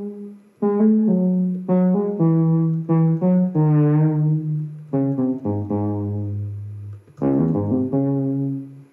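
A homemade expressive synthesizer built on a Daisy Seed plays a melody of single notes, one after another. A few held notes waver in pitch as vibrato, which comes from wiggling the flexure-mounted key bed.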